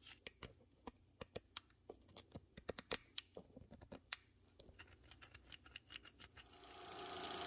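A fine pointed pick scratching and clicking irregularly in the engraved lettering of a steel golf iron head, working old paint and grime out of the letters. Near the end a motor starts and rises into a steady run, the belt grinder spinning up.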